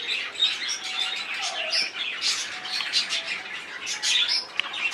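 Small birds chirping and squawking, many short high calls overlapping without a break.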